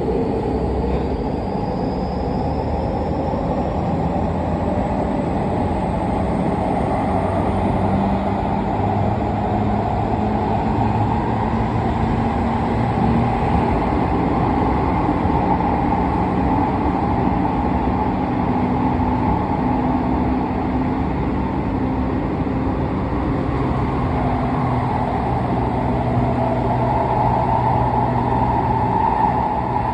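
Tokyu 5050 series electric train running: a steady rumble of running noise with low motor tones, and a faint high whine that rises in pitch over the first few seconds as it picks up speed.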